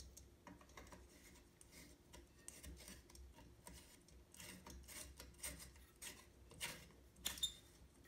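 Faint scraping and clicking of a Harbor Breeze Coastal Creek ceiling fan's frosted glass light globe being swiveled by hand in its holder, a few irregular rubs, the loudest a little after seven seconds in.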